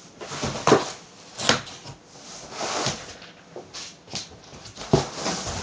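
Cardboard box and packing material scraping and rustling in a series of short bursts, with a few knocks, as a wooden-framed 3D printer is lifted out of its shipping box.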